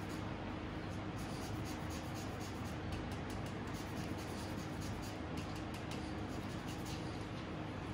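Rasp grater (Microplane) scraping zest off a citrus fruit: repeated light rasping strokes, faint over a steady low hum.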